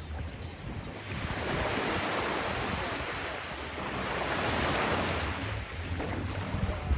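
Ocean surf washing onto a beach, two swells of wave noise rising and easing, with a low wind rumble on the microphone.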